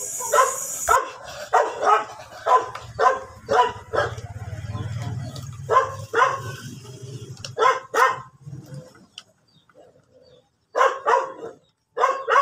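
A dog barking repeatedly, about two barks a second, then a pause and a few more barks near the end.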